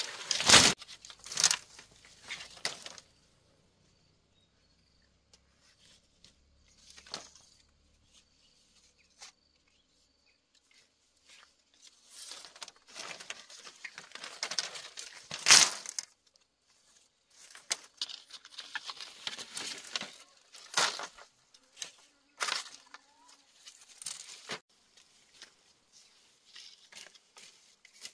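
Bamboo poles and split bamboo strips clattering and knocking as they are dropped and handled, with dry rustling and scraping of bamboo against bamboo and grass in between. The loudest knocks come right at the start and about halfway through.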